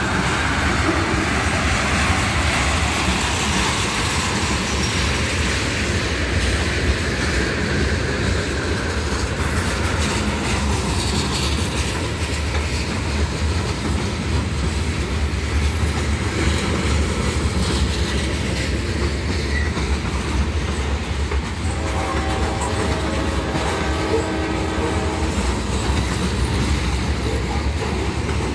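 Norfolk Southern freight train's tank cars and covered hopper cars rolling past close by, with a steady rumble and wheel-on-rail noise. About three-quarters of the way through, a held pitched tone with several notes joins in and carries on over the rolling cars.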